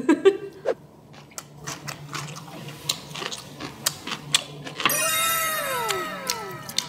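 Close-up eating sounds of chewing glutinous-rice sundae topped with kimchi: scattered soft mouth clicks and smacks. About five seconds in, a run of overlapping falling whistle-like tones sounds for a second or two.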